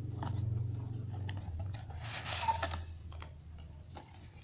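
A small cardboard box being opened by hand: light clicks and taps of the paperboard flaps and contents, with a brief scraping rustle about two seconds in as the contents slide out. A low hum underlies the first second and a half.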